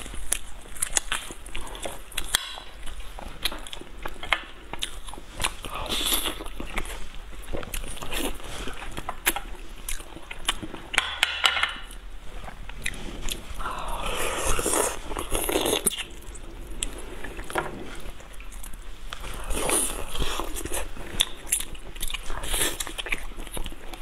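Close-miked eating sounds: fingers tearing apart boiled meat on the bone, with many small sharp clicks, then biting and chewing the meat.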